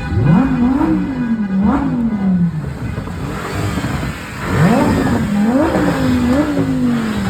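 Lamborghini engine being revved hard in quick blips: the pitch shoots up and sags back several times, in two bursts of revving a few seconds apart.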